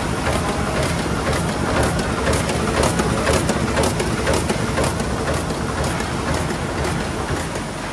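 Aster 180 book-sewing machine running, with a steady rhythmic clatter of about two beats a second as signatures travel along the saddle chains into the sewing head.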